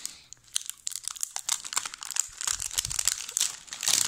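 Clear plastic packaging film crinkling and crackling as hands pull and crumple it: a dense, irregular run of sharp crackles, loudest near the end.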